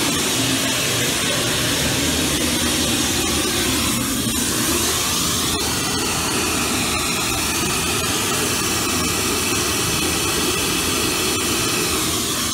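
Very, very loud steady hiss-like test noise from a large loudspeaker, spread evenly from deep bass to high treble and measuring about 101 decibels on a sound level meter.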